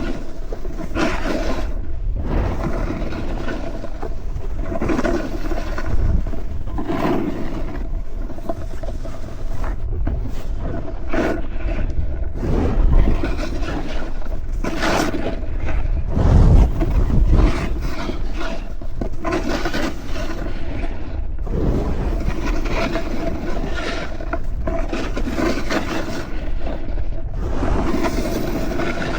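Snowboard edges scraping and carving over the snow in surges, under a steady rush of wind on the microphone.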